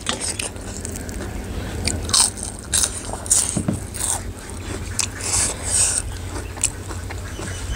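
Close-up eating sounds: a person biting and chewing crunchy food, in irregular crisp crunches.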